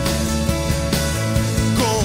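Live rock band playing an acoustic arrangement, with acoustic guitar over bass and drums. A sung note slides in near the end.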